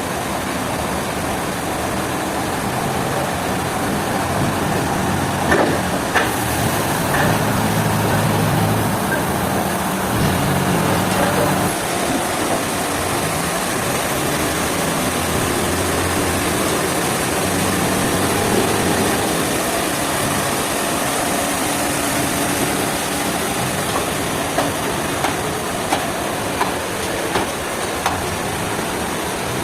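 Heavy machinery engine running steadily, with a few short knocks near the end.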